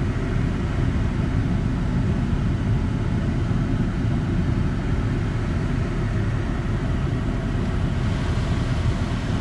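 Steady cabin noise of a running truck: a low rumble with an even hiss above it, unchanged throughout.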